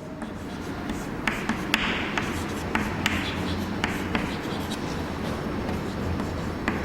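Writing by hand: scratchy strokes with scattered sharp taps, over a steady low hum.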